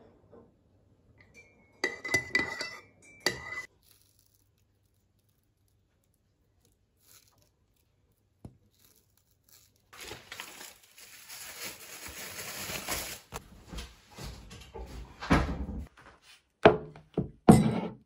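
A few sharp clinks against a ceramic mug, each ringing briefly, about two seconds in. Later come a few seconds of scraping, rustling noise, then several knocks, the loudest near the end as the mug is set down on a desk.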